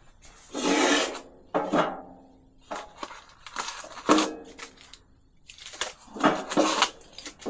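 Dishes being handled: a run of short clatters and knocks of crockery and utensils, some with a brief ring.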